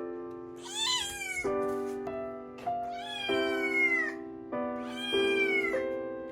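Cat meowing three times, each meow rising then falling, the middle one the longest, over background music with sustained chords.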